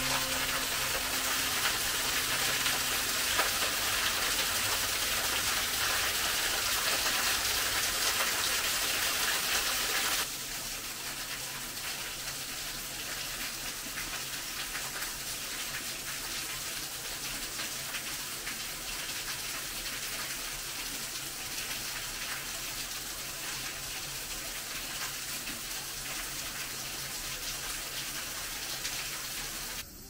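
Steady rush of a small waterfall pouring and splashing onto rocks. About ten seconds in it drops to a softer, more distant level.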